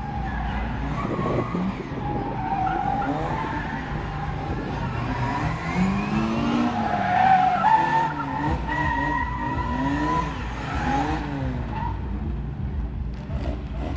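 Classic Mini's A-series four-cylinder engine revving hard, rising and falling again and again as the car is flung through tight turns, with tyres squealing on tarmac. It is loudest about seven to eight seconds in.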